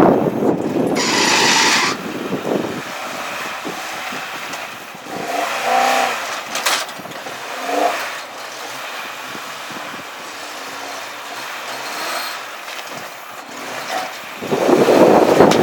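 A Toyota 4Runner working along a rough off-road trail, its engine and tyres mixed with gusts of wind on the microphone. The sound is loudest in the first two seconds and again near the end, with a sharp knock about two-thirds of the way in.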